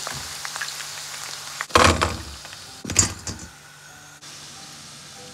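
Batter-coated fish frying in oil with a light sizzle, then two loud metal clatters about a second apart as the fried pieces are tipped from a slotted steel spoon into a metal colander.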